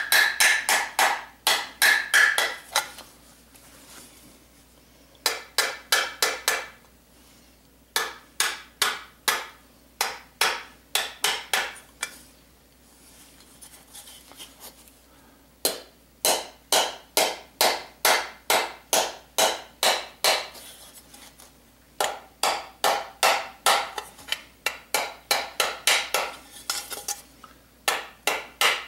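Small hammer tapping the edges of a Stihl MS660 chainsaw muffler down over its spark-arrestor screen, so the screen sits tight and seals. Quick, light metallic taps at about four a second come in five runs with short pauses between them.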